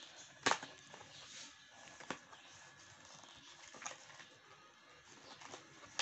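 Scattered light taps and rustles of a cardboard smartwatch box being handled and its end flap opened, with the sharpest click about half a second in.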